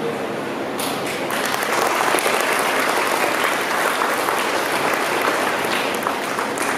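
Audience applauding, building up about a second in and thinning out near the end.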